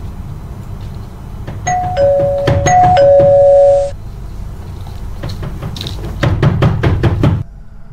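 Electronic two-tone doorbell chime rung twice in quick succession, each a higher 'ding' then a lower held 'dong'. A quick run of footsteps on the wooden stage floor follows.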